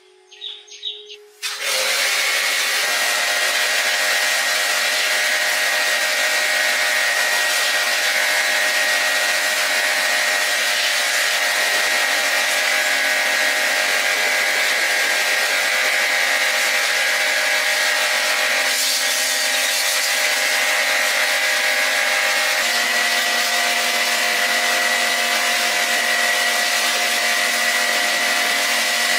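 A power tool starts up about a second and a half in and runs steadily with a high whine, its pitch shifting slightly about two-thirds of the way through.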